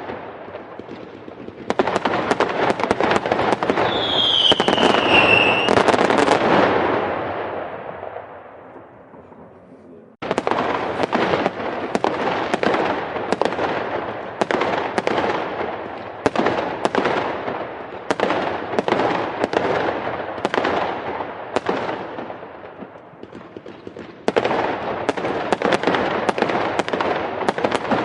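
Fireworks going off in rapid, dense volleys of bangs and crackles, with a short falling whistle about four seconds in. The bursts die away near ten seconds, then start again abruptly and keep going, swelling again near the end.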